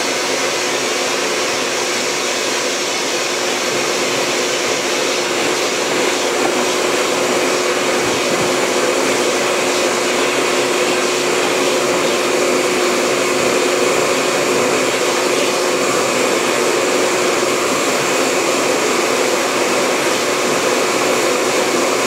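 Vacuum cleaner running steadily: a constant rush of air through its hose with a faint even hum.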